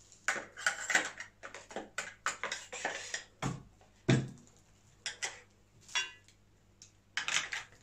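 Metal and polymer parts of a Derya CRX400 pump-action shotgun clicking and knocking as the barrel assembly is handled and fitted into the receiver during reassembly, with two heavier knocks around the middle.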